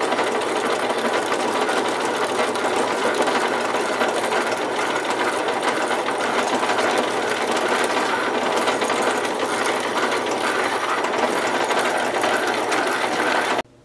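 Metal lathe running while a twist drill held in the tailstock chuck bores into a spinning 1-inch (25 mm) steel rod. It makes a steady motor-and-gear whir mixed with the noise of the cut, boring out the rod to make a cross tube. The sound cuts off abruptly shortly before the end.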